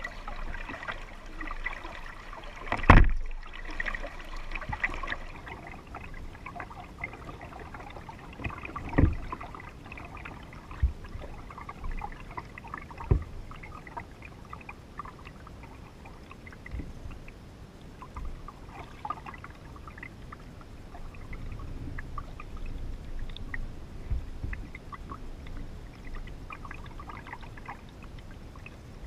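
Water splashing around a kayak under paddle strokes, then lapping softly against the plastic hull as it drifts. A few sharp knocks on the hull, the loudest about three seconds in.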